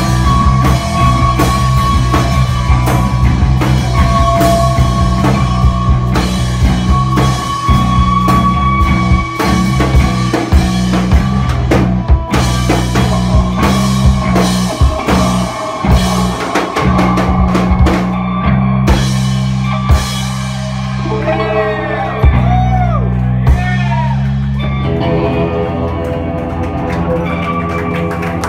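Rock band playing loud live music, with drum kit, bass and electric guitar. About two-thirds of the way in the drums stop, leaving droning bass and guitar with sliding, bending tones.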